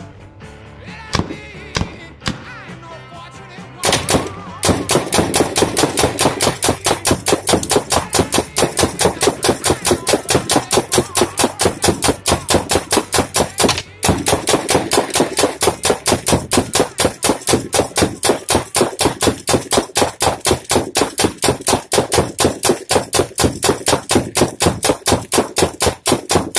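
Spyder Victor semi-automatic paintball gun firing nylon riot balls in rapid semi-auto fire, about four to five shots a second, starting about four seconds in with a brief break midway. Music plays underneath.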